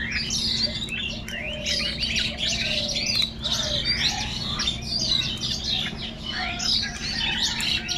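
A flock of birds calling and chirping over one another in a dense, unbroken chorus of short high calls, with a steady low hum underneath.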